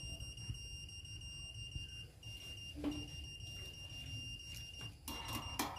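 Steady high-pitched beep tone from a satellite dish alignment signal meter, briefly breaking off about two seconds in. The meter beeps while the dish is receiving the satellite signal.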